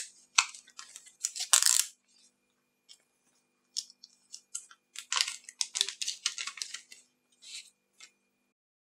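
Crinkling and rustling of a small clear plastic bag being handled and opened, in short irregular crackles.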